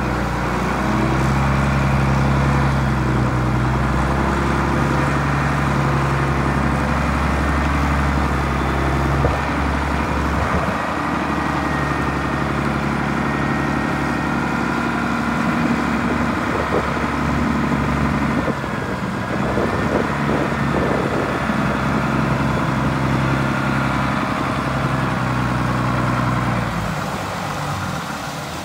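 LMV 12/D heavy forklift's diesel engine running steadily; its note changes about ten seconds in and drops a little near the end.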